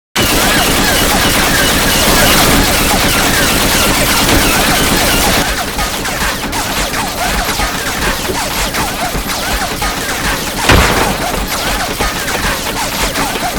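Dense, rapid gunfire with many shots overlapping in a continuous battle din. It thins a little about five seconds in, and there is one louder blast about eleven seconds in.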